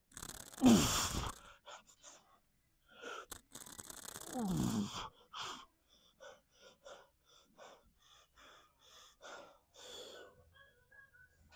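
A man's strained, falling-pitched grunts of effort, twice, about half a second and about four seconds in, each a loud forced exhale, from the exertion of a heavy lifting set. Then rapid, heavy panting, about two breaths a second.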